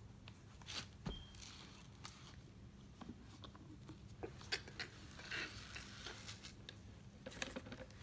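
Faint, scattered light clicks and short rustles of hands handling the vacuum cleaner's plastic parts, with no motor running.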